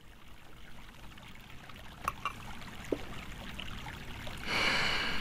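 Faint room tone with a light click about two seconds in, then about a second of liquid being poured into a small cup near the end.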